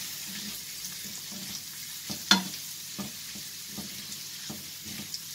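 Chicken and bacon pieces sizzling gently in a ceramic-coated frying pan on low heat while a wooden spatula stirs them, with small scrapes and ticks. One sharp knock of the spatula against the pan comes a little over two seconds in.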